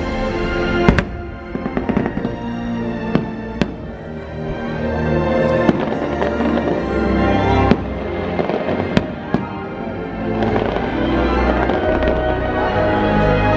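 Aerial fireworks bursting in sharp bangs every one to two seconds over the show's soundtrack music. In the last few seconds the bangs stop and the music swells louder.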